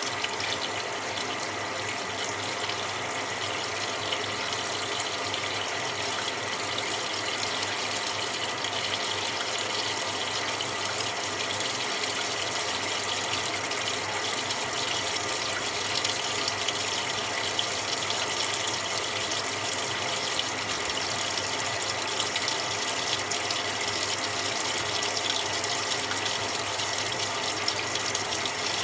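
Samsung 6.5 kg top-loading washing machine filling its drum: a steady rush of water pouring in through the inlet, unchanging throughout.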